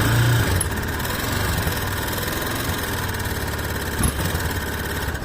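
Yamaha Fazer 250 single-cylinder engine idling with a strange mechanical noise from the top end, not the connecting rod: the camshaft and rocker arms are damaged and the cam chain tensioner is a makeshift fix.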